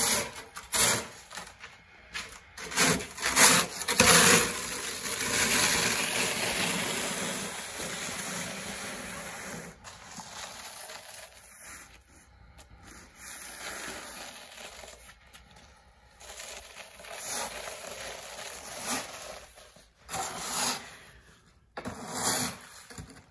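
Snow shovel scraping and pushing wet, sticky snow across a concrete driveway: a run of short scrapes, one long push about five seconds in, then fainter, sparser strokes.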